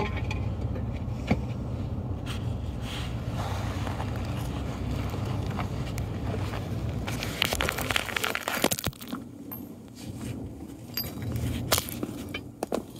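Clicks, scrapes and clatter of metal suspension parts and tools being handled while a control arm is pulled over and bolted in. A steady low hum underneath drops away about eight seconds in. The loudest scraping comes from about seven to nine seconds in and again near the end.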